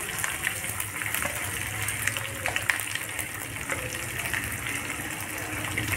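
Hot oil sizzling steadily in a small pan as freshly added chopped green onion, green garlic and green chillies fry for a tadka (tempering), with many small crackles through the hiss.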